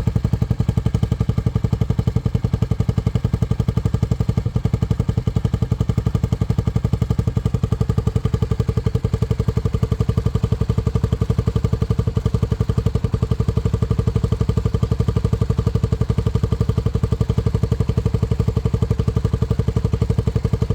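Honda CBX125F's 125 cc single-cylinder RFVC DOHC four-stroke engine idling steadily and evenly, with no revs; the stable, smooth idle of the engine once it has warmed up.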